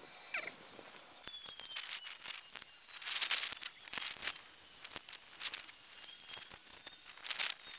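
Hand tools and battery cables being handled: scattered clicks, taps and rustles, with no steady sound under them.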